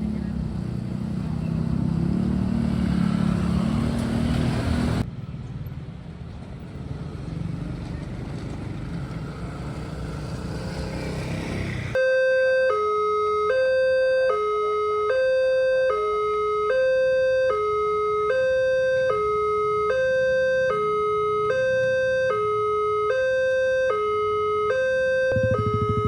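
Road traffic with motorcycle engines running, cut off abruptly about five seconds in. About halfway through, an electronic railway level-crossing alarm starts sounding a steady two-tone warning, a high and a slightly lower pitch alternating about once a second.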